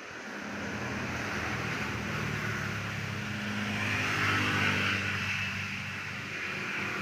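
A motor vehicle's engine passing, growing louder to a peak about four and a half seconds in and then easing off slightly.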